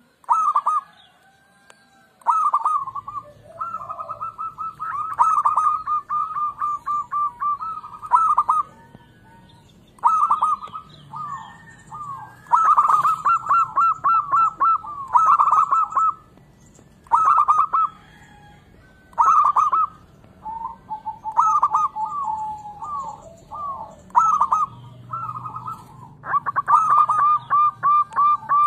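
Zebra dove (perkutut) cooing: repeated phrases of quick, clipped coos, each phrase one to three seconds long, with short pauses between them. A low steady hum sits underneath from about three seconds in.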